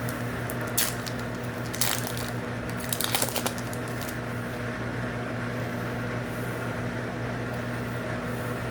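Foil booster-pack wrapper being torn open and crinkled, in a few short crackles over the first few seconds. A steady low hum runs underneath.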